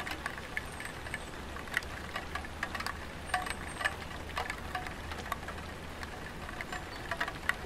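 Light rain falling on a tiled roof: scattered drops tapping irregularly, some with a slight ringing tone, over a steady low hum.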